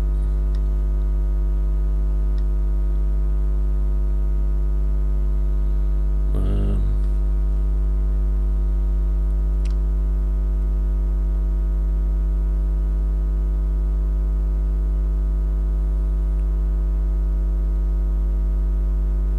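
Steady mains hum: a loud, unchanging low electrical drone with a buzzy stack of overtones, with a few faint ticks over it.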